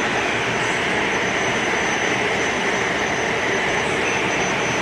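Steady machinery drone of an offshore oil platform: an even rush with a faint thin high whine above it, not changing in level.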